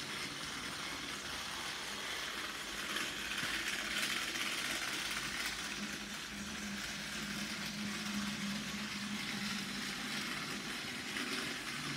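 Plarail battery-powered toy locomotive running on plastic track: the small electric motor and gearbox give a steady whirring hiss as the wheels roll. A low hum joins in about halfway through.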